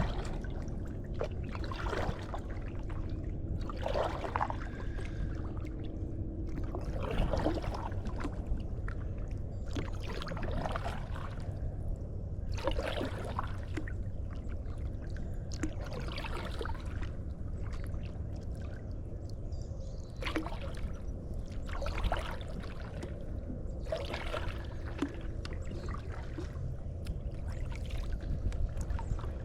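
Kayak paddle strokes: the blade dipping and water pouring and trickling off it, about one stroke every two to three seconds, over a steady low rumble.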